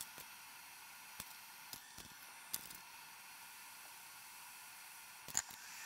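A few light clicks and taps of metal tools against a circuit board, the sharpest about two and a half seconds in and near the end, over a steady faint hiss.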